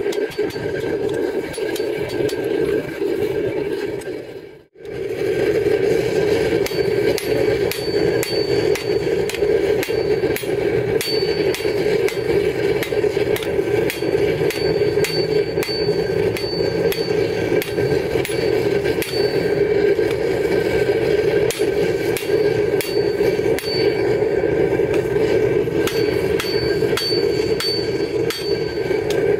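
Hammer blows on a red-hot leaf-spring steel axe head on an anvil, a long run of strikes with a short high ring on many of them, over a loud steady drone. The sound drops out briefly about five seconds in.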